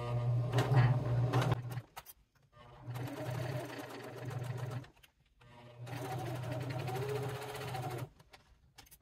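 Electric sewing machine stitching through layers of cork fabric in three steady runs, stopping briefly about two seconds in, again about five seconds in, and near the end.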